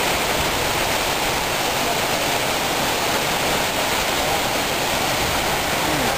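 Steady, even rush of water falling from a big waterfall.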